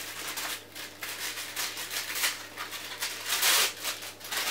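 Plastic packaging crinkling and rustling in the hands as a small wrapped packet is opened. The crackles are short and irregular, and loudest about three and a half seconds in.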